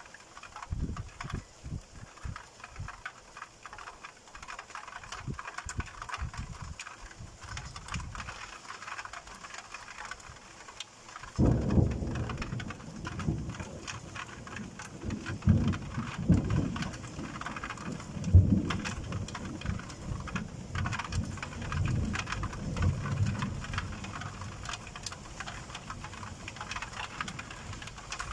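Raindrops ticking and pattering throughout. About 11 seconds in, a long roll of thunder starts suddenly and rumbles on for some 13 seconds with several louder swells before it fades.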